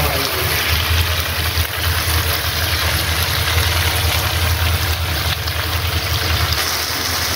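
Sliced tomatoes, onions and garlic sizzling in oil in a frying pan while they soften, over a steady low rumble.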